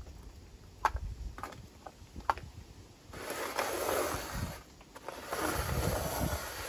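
Paper cups set down on painted wooden deck boards with a few light taps, then slid and shuffled across the boards in two stretches of scraping, starting about three and five seconds in.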